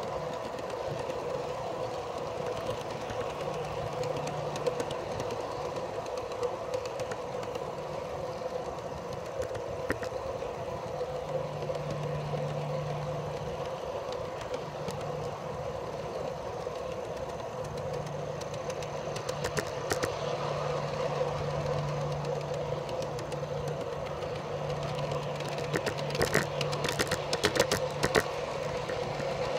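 Small metal wheels of a rake of garden-railway freight cars rolling steadily along the track, heard from aboard the train. There is a run of sharp clicks near the end.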